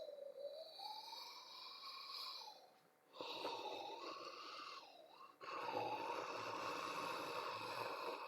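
A person yawning: long, breathy, drawn-out yawns whose pitch slides up and down, broken by short pauses about three and five seconds in.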